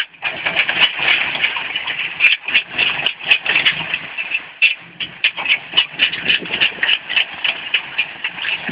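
Four-wheel-drive vehicle's engine running under load as its tyres spin in loose stony dirt, with gravel and stones clattering irregularly throughout.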